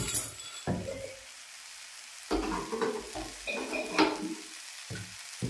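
Potato sagu cooking in a steel kadai on a gas stove, a steady sizzling hiss of the simmering curry. A sharp clink comes near the start and another about four seconds in.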